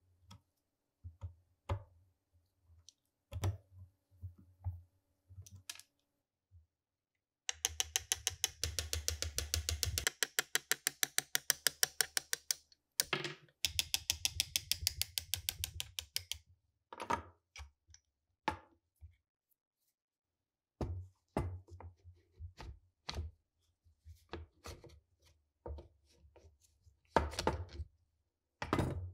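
Knocks, taps and clicks of an SKS rifle's wooden stock and metal parts being handled and fitted together. In the middle come two stretches of rapid, evenly spaced clicking.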